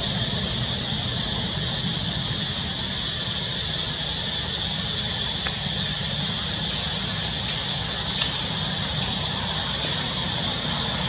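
Steady outdoor background noise: a constant high hiss over a low rumble, with two faint clicks about two-thirds of the way through.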